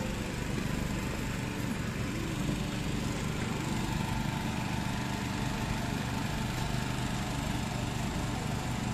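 Steady machine drone with a constant low hum and a fainter, higher steady tone, unchanging throughout.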